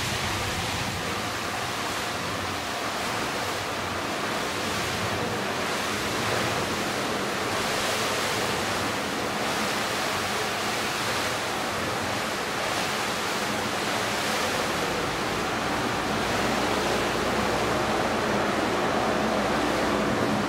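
Ceasefire water mist kitchen fire suppression system discharging onto a kitchen fire: a steady rushing hiss of high-pressure water mist mixed with the fire, growing a little louder in the last few seconds.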